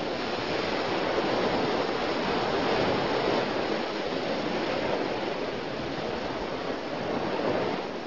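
Ocean waves: a steady rushing wash of surf that swells and eases gently.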